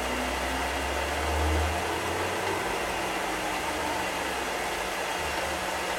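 Small bench-top metal lathe running steadily at about 1000 RPM, its motor and drive humming with a steady hiss while the tool takes a light shaving cut across a wax phonograph cylinder. A low rumble swells briefly between about one and two seconds in.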